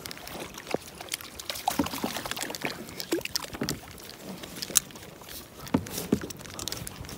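Water splashing and lapping at the side of a plastic kayak as a hooked fish is brought into a landing net, with scattered short knocks and clicks from the gear being handled.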